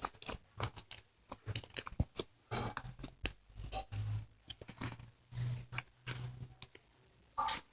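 Slime being squeezed and worked by hand, giving many irregular sticky clicks, pops and squelches.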